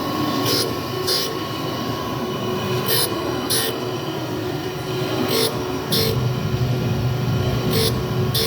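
ELB-Schliff surface grinder running: a steady whine with short hissing bursts that come in pairs about every two and a half seconds, and a lower hum that comes in about six seconds in.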